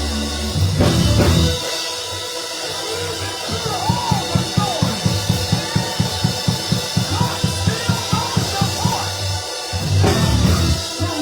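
Live church band music: a quick, even run of drum hits over bass and sustained chords, with the full band swelling about a second in and again near the end.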